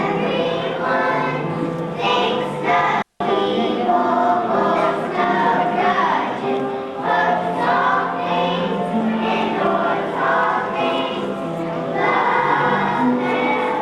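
A choir singing a song, the sung notes held and changing pitch, with a split-second dropout of all sound about three seconds in.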